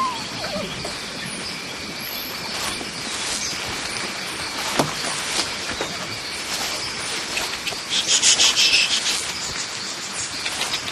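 Tropical forest ambience: a steady drone of insects with scattered bird chirps, and a louder burst of rapid high chirping about eight seconds in.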